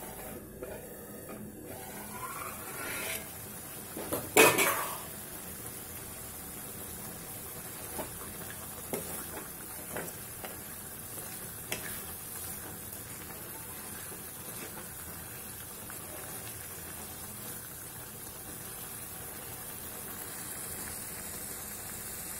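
A spatula stirring capsicum masala curry in an aluminium kadai, with a loud clatter about four seconds in and a few light knocks against the pan over a steady faint hiss.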